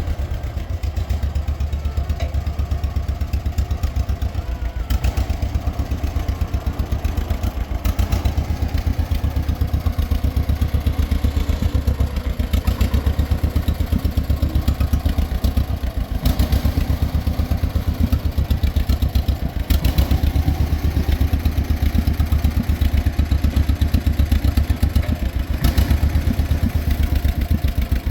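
1949 John Deere Model M tractor's two-cylinder engine running steadily at idle with a rapid, even popping beat, with a few short knocks now and then.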